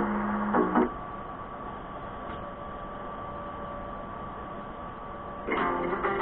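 Music stops under a second in, leaving a steady hiss with a faint thin hum for about four and a half seconds, like a gap between songs. Guitar-led music starts again near the end.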